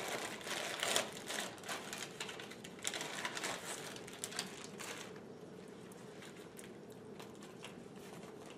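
Plastic packaging crinkling and crackling as an enteral feeding bag set is pulled from its clear plastic wrapper and unfolded. It thins out after about five seconds, leaving quiet room tone.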